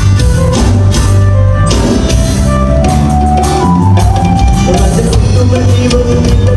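Live band playing loudly: drum kit, guitars and keyboards, with drum strikes throughout.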